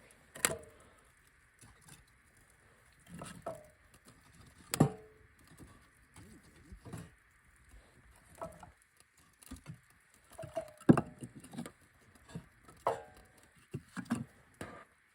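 Irregular knocks and clunks as pieces of firewood are handled and set down one by one to build a fire, some with a short ring.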